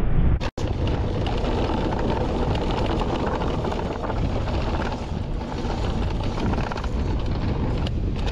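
Wind buffeting the camera microphone over the rumble of the Intense Tazer Pro e-mountain bike's tyres on a dry dirt singletrack during a descent. The sound drops out for an instant about half a second in.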